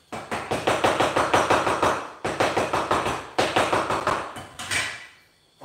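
Rapid knife chopping on a wooden cutting board: fast, even strokes about six or seven a second, in three runs with brief pauses between them.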